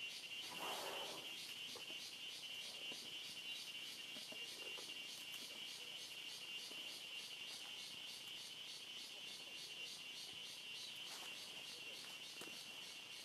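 Forest insect chorus: a faint, steady high-pitched trill that pulses several times a second. There is a brief rustle of leaves about a second in.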